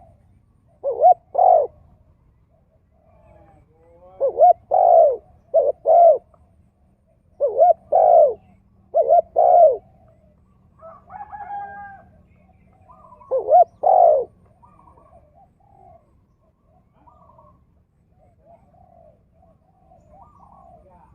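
Spotted dove cooing loudly in repeated phrases of paired, arching notes, a pause of a second or more between phrases. Faint chirps of other birds fill the gaps, and the cooing stops a little after two-thirds of the way through.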